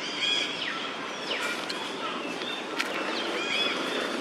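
Baby macaque giving a run of short, high-pitched squeaky calls that rise and fall in pitch, over a steady background hiss, with a sharp click about three seconds in.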